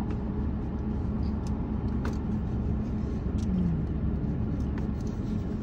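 Steady low rumble of a running car heard from inside the cabin, with a few light clicks.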